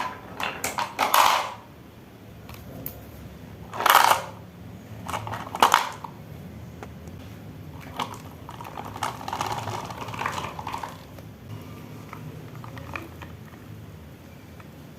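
Marbles rolling and clacking down the wooden ramps of a marble run. There are loud clattering runs just after the start, about four seconds in and near six seconds in, a longer rolling rattle from about nine to eleven seconds, and single sharp clicks in between.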